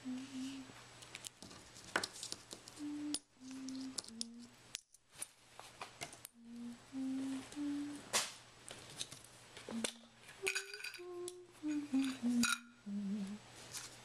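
A person humming a slow tune in short held notes, over a faint steady low hum. Light clicks and clinks come from handling the ceramic mug, the tea bag and the saucer lid.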